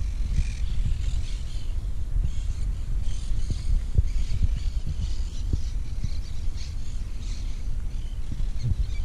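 Wind buffeting the microphone, a heavy fluttering rumble, with birds chirping faintly in the background.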